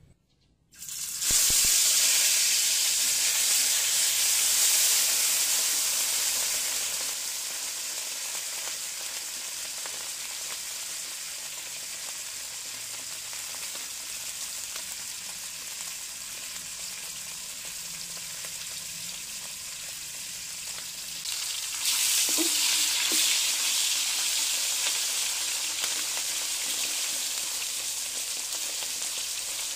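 Tilapia frying in hot oil: a sizzle that starts abruptly about a second in, as the fish goes into the oil, is loudest for the next few seconds and then settles to a steady sizzle. It surges again a bit past two-thirds of the way through.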